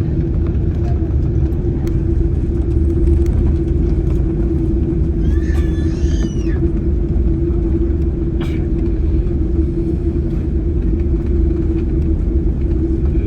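Boeing 747-8i cabin noise in flight: a loud, steady low rumble of engines and airflow with a constant hum.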